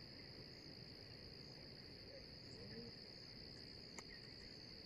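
Faint, steady, high-pitched insect chorus droning without a break, with one small sharp click about four seconds in.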